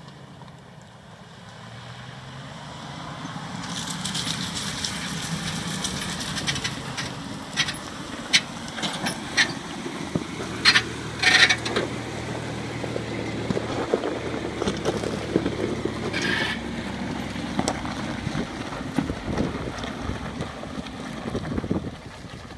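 Chevrolet Astro van's engine running under load as it climbs a loose rocky slope and passes close by, growing louder for the first few seconds as it approaches. Tyres crunch over the stones, with a string of sharp cracks from rocks under the wheels in the middle, the loudest about halfway through, and one more a few seconds later.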